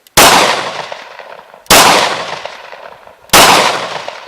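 Three gunshots about a second and a half apart, each sharp crack followed by a fading echo.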